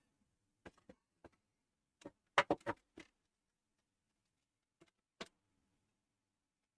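Scattered short clicks and taps from handling the Dell Inspiron 560 tower, with a quick run of four clicks about two and a half seconds in. No fan spins up: the PC stays dead with the new graphics card fitted, its 300-watt power supply refusing to start.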